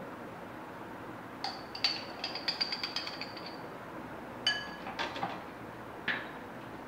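Metal spoon clinking and tapping against glass while thick condensed milk is scooped from a jar into a bowl. A quick run of ringing taps comes about a second and a half in, then a few single clinks.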